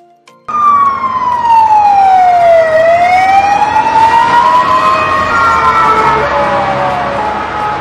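Ambulance siren wailing. Starting about half a second in, it glides slowly down in pitch, rises again, then begins another fall, with road noise beneath.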